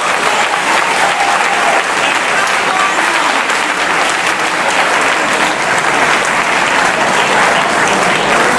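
Audience applauding, breaking out suddenly and keeping up steadily.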